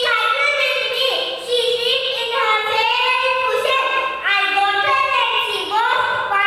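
A young girl singing solo into a handheld microphone, in a high voice with long held notes that slide between pitches, phrase after phrase.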